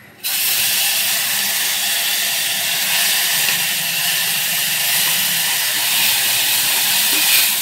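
Wet ground green spice paste dropped into hot tempering oil, sizzling hard: a loud hiss that starts suddenly just after the first scoop goes in and keeps on steadily.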